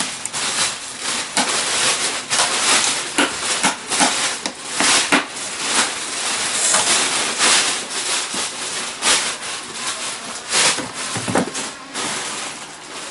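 Irregular knocking and clattering over a steady hiss, from a potato-washing machine being worked.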